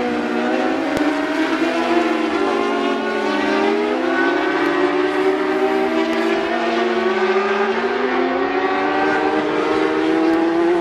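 Several superbike engines running at high revs at once. Their pitch keeps rising and falling as the riders work the throttle and change gear.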